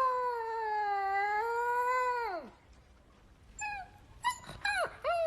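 A dog howling: one long, wavering howl that slides down and breaks off about two and a half seconds in, followed by a few short yelps near the end.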